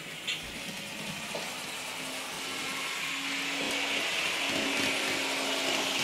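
N scale sound-equipped diesel locomotive running on the track, its decoder's engine sound and running noise growing steadily louder as it approaches, over a steady low hum.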